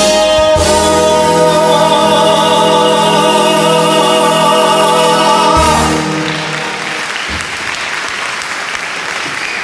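A male crooner holds a long final note with vibrato over backing music, and the song ends about six seconds in. Applause follows.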